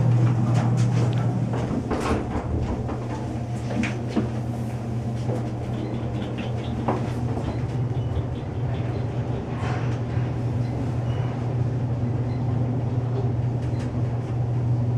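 Otis traction elevator car running up several floors, heard from inside the cab: a steady low hum with scattered clicks and knocks.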